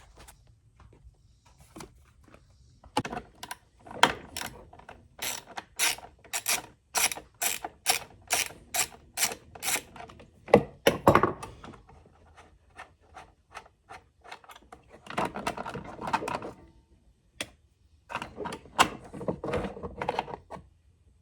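Ratchet wrench clicking, a steady run of about three clicks a second for several seconds, then two shorter bursts of denser mechanical clicking.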